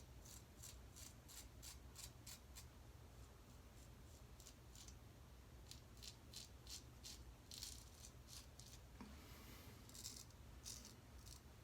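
Faint, short scraping strokes of a Weck Sextoblade shavette razor cutting a day's stubble, coming in quick runs of several strokes a second with pauses between.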